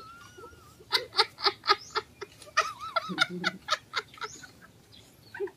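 People laughing heartily in quick, repeated 'ha-ha' bursts: one run about a second in and another just past the middle.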